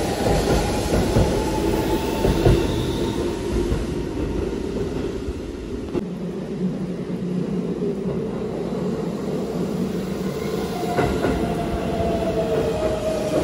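Keihan 13000 series electric commuter train running along a station platform: a low rumble with wheel clatter. About halfway through, the sound drops suddenly to a quieter station hum, with a steady whine from a train near the end.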